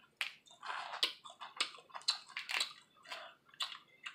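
Boiled crawfish shells cracking and being pulled apart by hand, along with chewing: an irregular run of crackles and snaps, about three a second.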